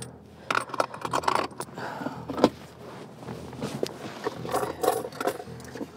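A person rummaging for cash: rustling, scraping and small clicks, with one sharper click about two and a half seconds in.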